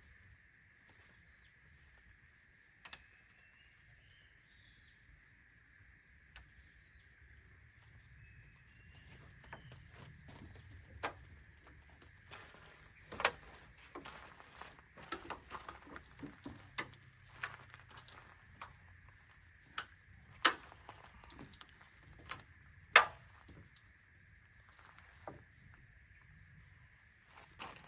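Steady high-pitched drone of insects, with scattered sharp clicks and knocks of handling or movement that come thicker from about ten seconds in; the two loudest knocks fall about twenty and twenty-three seconds in.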